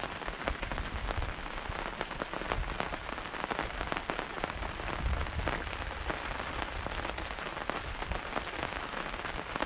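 Heavy rain falling steadily, with many sharp drop hits on the vehicle awning overhead.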